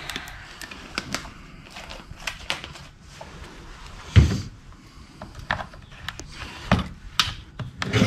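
Scattered clicks and knocks from a chainsaw being handled, with one heavier thump about four seconds in.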